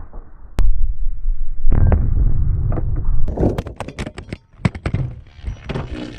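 A sharp crack, then a heavy low rumble and a rapid string of sharp impacts from a 76 mm solid steel tank round fired from a Sherman tank punching through a row of steel safes.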